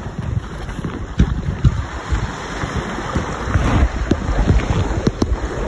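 Waves breaking and washing in the surf, with wind buffeting the microphone and scattered thumps.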